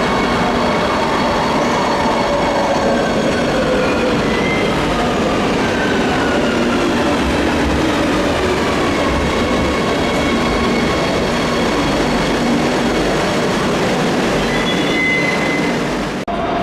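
Madrid Metro train running through an underground station: a loud, steady rumble of wheels on rail with several whining tones that slowly slide in pitch. The sound cuts out abruptly near the end.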